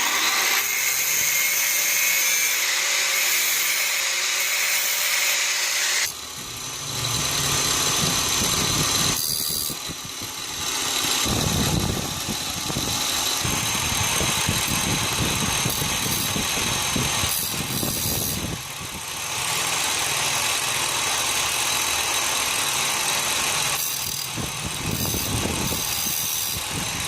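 An electric power tool running continuously under work, with a steady high motor whine. Its sound changes abruptly several times, about six seconds in, around ten seconds and near nineteen seconds, before it cuts off at the end.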